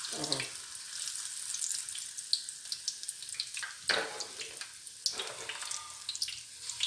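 Akrakro, a ripe-plantain fritter batter, deep-frying in a pan of hot oil with a steady sizzle, as fresh dough is dropped in.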